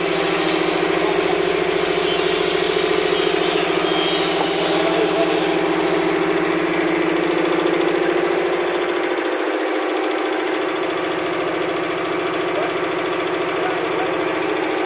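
Belt-driven, air-cooled multi-cylinder piston air compressor and its electric motor running steadily: a constant hum with a fast, even beat of the pistons.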